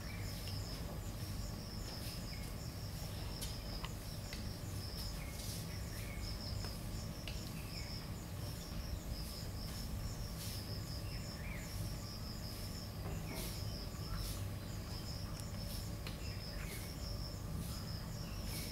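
Insects, cricket-like, trilling in a steady high pulsing chorus, with a few faint short bird chirps over a low steady background rumble.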